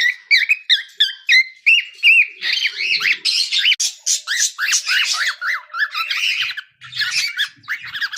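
Cockatiel singing: a rapid, continuous run of short chirps and warbling notes, with a few brief held whistles near the start.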